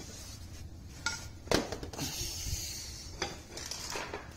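A few sharp clicks and knocks, the loudest about a second and a half in, with rustling hiss between them: handling and movement noise while someone moves about with the camera.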